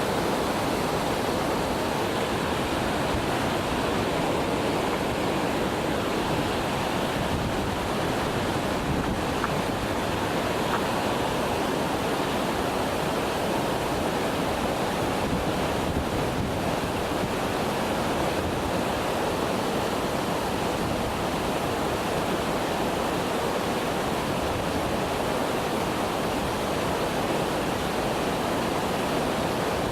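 Waterfall: falling water making a steady, loud rushing noise that does not change.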